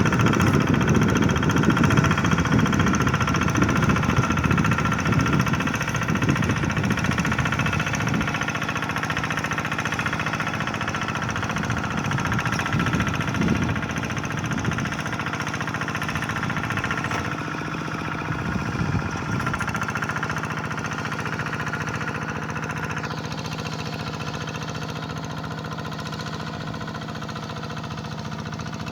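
Single-cylinder diesel engine of a hand tractor running steadily at work, ploughing a rice paddy. It has a heavy low rumble in the first several seconds and grows gradually fainter.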